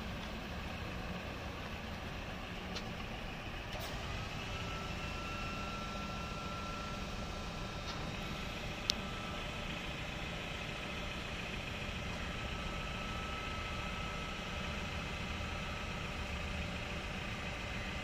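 Steady engine idle with a faint whine from the hydraulics as the cattle catcher body's rear loading ramp lowers on a Mahindra Bolero. There is one sharp click about nine seconds in.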